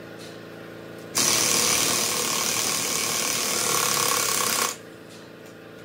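A loud mechanical power tool runs in one burst of about three and a half seconds. It starts about a second in and cuts off abruptly, over a steady background hum.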